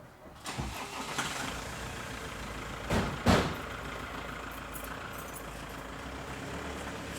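A fire truck's diesel engine starts about half a second in and runs steadily at idle, with two heavy thumps in quick succession about three seconds in.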